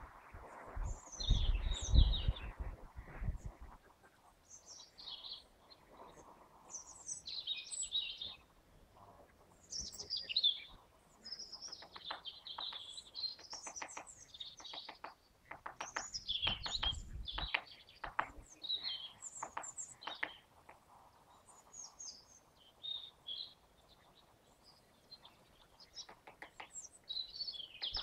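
Spotted woodpecker pecking at the bark of an acacia trunk while foraging, sharp taps in several irregular bursts in the middle, with songbirds chirping throughout. A low rumble near the start and again briefly midway.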